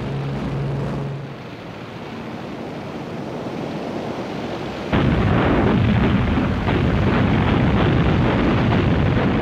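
Aircraft engines droning, with a steady low hum at first. About five seconds in, a sudden, much louder rumble of explosions breaks in.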